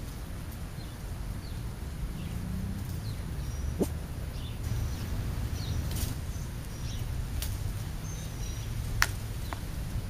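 Small birds chirping faintly at a street-side feeding spot, over a steady low rumble, with a few sharp clicks; the clicks about four seconds in and near the end are the loudest.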